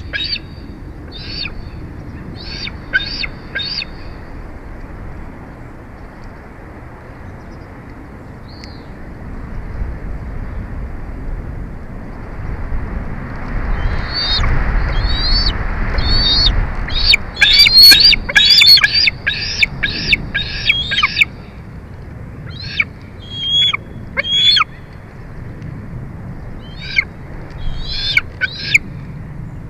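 Bald eagle calling: short, high, thin chirping notes in quick series, loudest and densest about two-thirds of the way through. A low rushing noise swells and fades midway.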